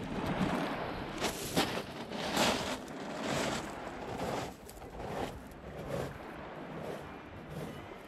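Small waves washing over a pebble beach, rising and falling in irregular surges.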